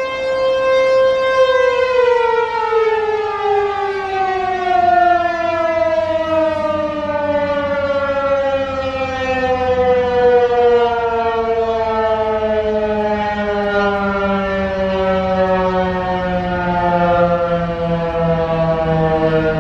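American Signal Tempest T-128 electromechanical outdoor warning siren ending its steady alert tone about a second and a half in, then winding down with its pitch falling slowly and evenly through the rest.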